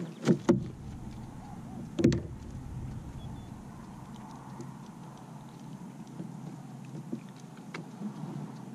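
Handling noise on a kayak as a landed fish is held and unhooked: a few sharp knocks and bumps in the first couple of seconds, then low, quiet rustling and faint ticks.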